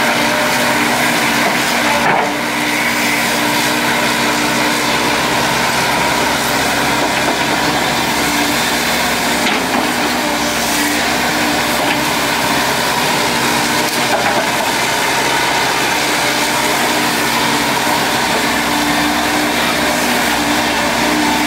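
Volvo EC210D crawler excavator's diesel engine and hydraulics running steadily under load while it digs soil, with a couple of brief knocks.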